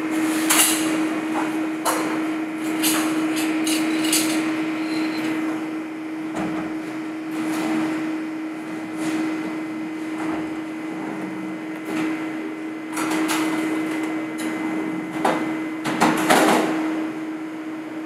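Stainless-steel wall cabinet's sliding doors being slid and knocked, with scattered clatter of kitchen utensils, over a steady hum of kitchen equipment. The loudest knocks come right at the start and again about sixteen seconds in.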